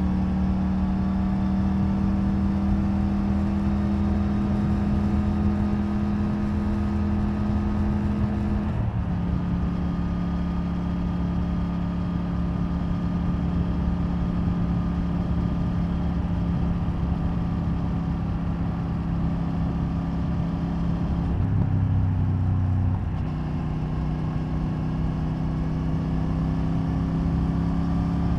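Triumph Tiger 900 Rally Pro's inline three-cylinder engine through the stock exhaust, heard from the rider's seat while riding on the road. The engine note climbs slowly as the bike accelerates, drops with an upshift about nine seconds in, then runs steadily, with a short change in engine note about two thirds of the way through.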